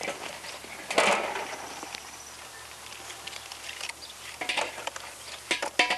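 Aluminium foil rustling and light metallic clicks from food being handled at a charcoal kettle grill, with a louder rustle about a second in and a quick run of clicks near the end.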